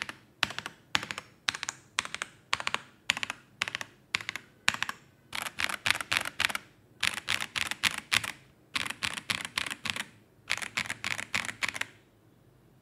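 Stock KZZI K75 Pro 75% mechanical keyboard with stock Moment switches being typed on: short clusters of keystrokes about twice a second at first, then fast continuous typing from about five seconds in, stopping a little before the end.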